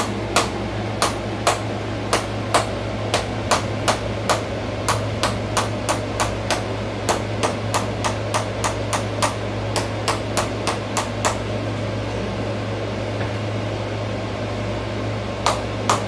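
Hand-held chiropractic adjusting instrument tapping repeatedly on the SI joint area of the lower back: a quick series of sharp clicks, about two to three a second, that pauses for a few seconds and starts again near the end.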